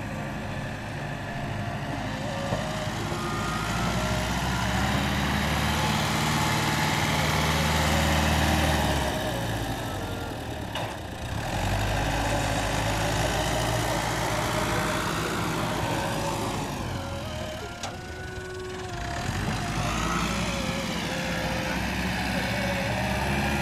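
Diesel farm tractor engine running while it hauls a loaded trolley of chopped corn silage, the engine note rising and falling a few times as it works.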